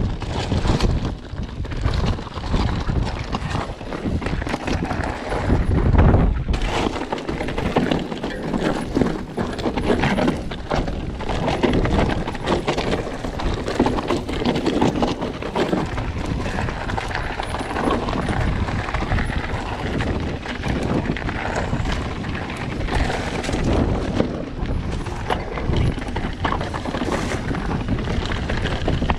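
Mountain bike riding down a rocky, stony trail: a continuous clatter of tyres over stones, with many knocks and rattles from the bike.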